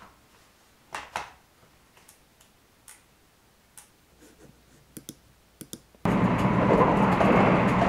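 Buttons and dial of a Canon DSLR on a tripod clicking as its settings are changed: two sharp clicks, then a string of fainter ones. About six seconds in, a loud steady rushing noise with a low hum starts suddenly and drowns them out.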